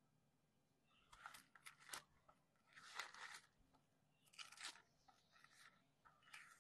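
Faint rustling and crinkling of thin Bible pages being leafed through by hand, in about five short spells.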